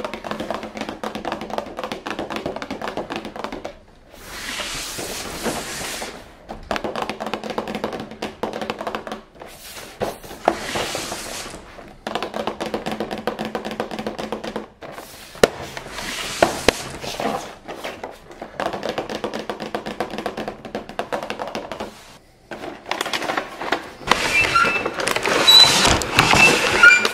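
Hands tapping, rubbing and handling a cardboard toy box, then crinkling and cracking of a clear plastic blister tray as it is pulled out near the end. Background music plays underneath.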